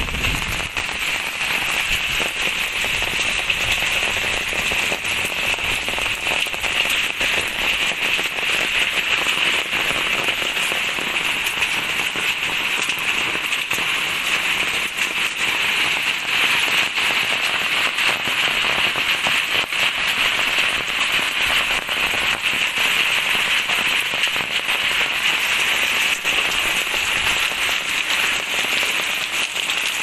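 Hailstones and heavy rain pelting down in a dense, steady clatter of fine ticks.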